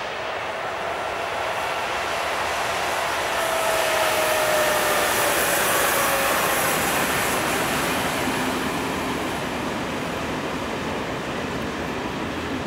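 Electric freight locomotive passing close by, giving a whine that falls in pitch as it goes past, loudest about halfway in. This is followed by the steady rumble of loaded freight wagons rolling over the rails.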